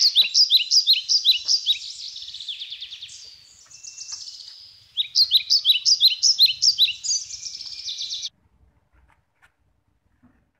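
Bird chirping in fast, high-pitched, repeated notes in two runs, cutting off abruptly about eight seconds in.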